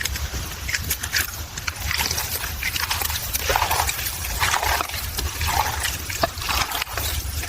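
Wet squelching and sloshing in irregular bursts, as of sausage meat being mixed by hand with grated onion and garlic paste, over a steady low rumble.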